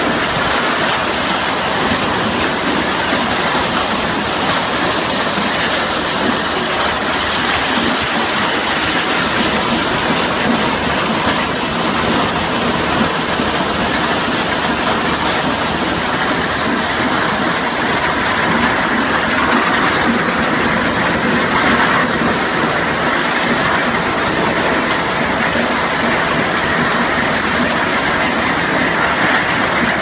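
Tractor-driven two-row potato combine harvester running: a steady, dense clatter of its steel-rod conveyors carrying potatoes and soil.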